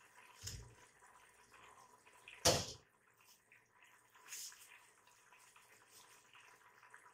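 Mutton curry in oil and water bubbling and spitting in an open pressure cooker pot as its water is cooked off, with scattered small pops. One louder sharp thump comes about two and a half seconds in.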